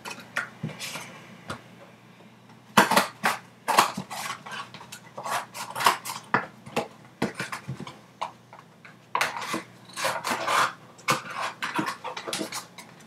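Thin cardboard from a snack box being handled and rolled in the hands: irregular crinkles and clicks in several bunches.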